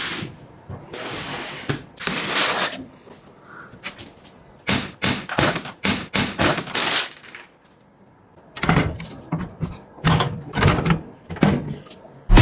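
A string of short knocks, clicks and scrapes, as of objects being handled, with a few longer rustling or scraping sounds and brief quiet gaps.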